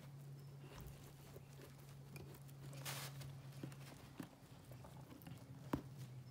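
Faint scattered clicks and taps of dissecting instruments (scalpel and scissors) and gloved hands handling a cow's eye on a dissecting pad, with a brief rustle about three seconds in and a sharper click near the end. A steady low hum runs underneath.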